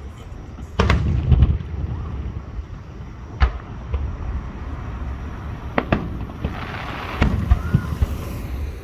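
Aerial fireworks going off, sharp bangs at irregular intervals over a low rumble, with a denser cluster of reports near the end.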